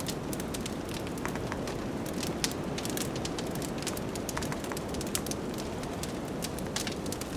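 Wood fire in a fireplace crackling, with many quick pops and a louder pop about two and a half seconds in, over a steady low rushing of blizzard wind.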